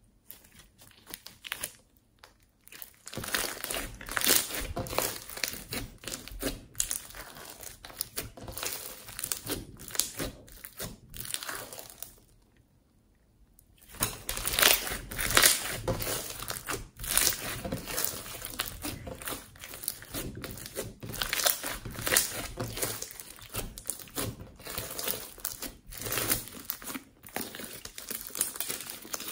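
Glittery slime squished and pressed by hand, giving a dense run of sticky crackles and small pops. It starts a few seconds in, stops for about two seconds near the middle, then goes on again.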